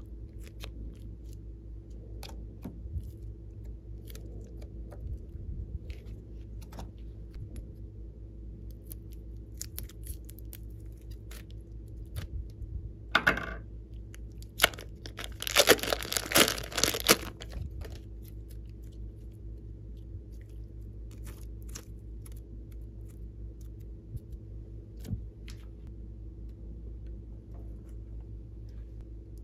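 Glossy slime being handled with bare hands, giving scattered faint clicks and pops, then a loud run of crackling, tearing squelches for a few seconds midway as it is stretched and pressed. A steady low hum sits underneath.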